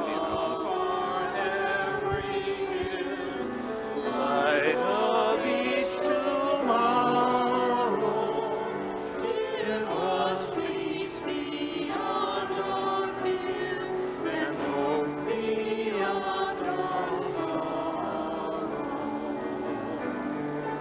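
Church choir singing a hymn with sustained instrumental accompaniment.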